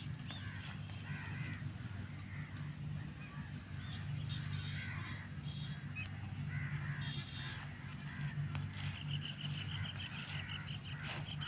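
Birds calling in short, scattered notes, with a fast run of repeated high notes about nine seconds in, over a steady low hum.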